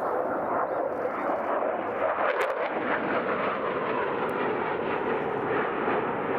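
Mitsubishi F-2 fighter's jet engine heard in flight: a continuous rushing jet noise, a little louder about two to three seconds in.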